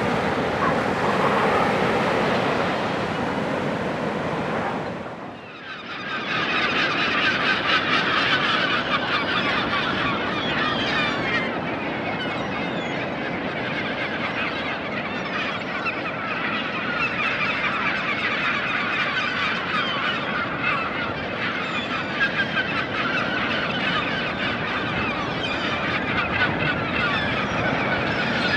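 Surf and wind for the first few seconds. After a brief drop in level, a dense chorus of many seabirds calling at once, a steady chattering of short high calls over the sound of the waves.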